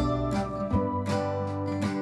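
Background music of plucked acoustic guitar, a string of picked notes that ring and fade.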